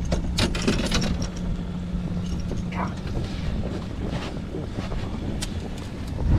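Wind buffeting the microphone on a small open fishing boat, over a steady low hum that fades out about three seconds in. A quick cluster of clicks and knocks comes in the first second, with a few scattered clicks later, as a freshly caught speckled trout is handled on deck.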